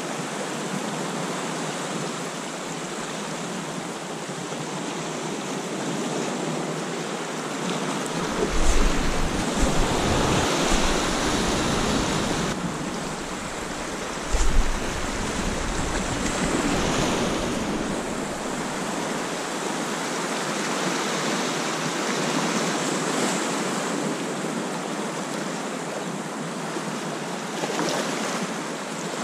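Sea surf washing and breaking over the rocks in a steady rush. Wind buffets the microphone in low rumbling gusts about a third of the way in and again briefly around the middle.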